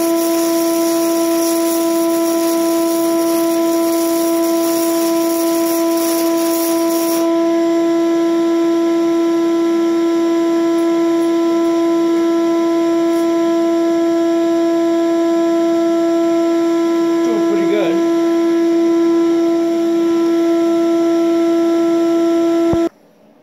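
Shop vacuum rigged as a welding fume extractor running with a steady hum. Over it, a 6011 stick-welding arc crackles for about the first seven seconds, then stops.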